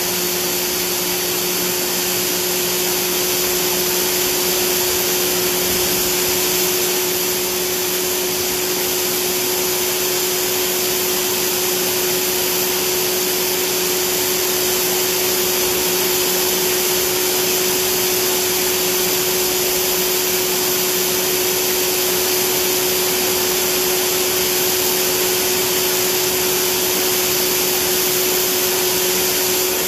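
Rolls-Royce Gem turboshaft engine from a Westland Lynx helicopter running at a steady speed: an even turbine rush and hiss with a constant low hum beneath it.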